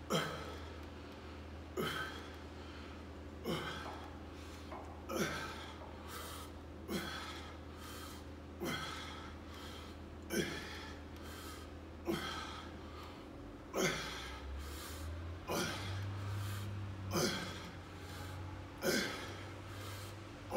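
A man breathing out sharply and forcefully on each pull of a bent-over dumbbell row, about one breath every 1.7 seconds, around a dozen in all. A steady low hum runs underneath.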